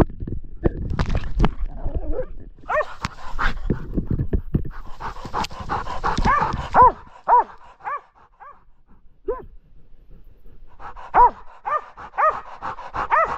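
West Siberian laika barking, heard close up through its collar camera: first rustling and thumping as it runs through brush with a few barks, then a quieter spell, then steady repeated barking about two barks a second near the end, as it bays up a tree at a treed bear.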